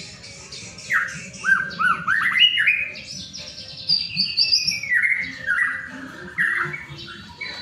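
White-rumped shama (murai batu) singing a varied song. About a second in comes a quick run of short arching whistled notes, then a long phrase that falls in pitch, then more short notes near the end.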